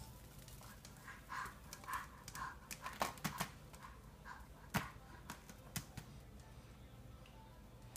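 Baby eating mushroom pieces straight off a plastic seat tray: a run of about four short breathy grunts, then a few sharp clicks and smacks of mouth and hands on the tray, one louder click midway.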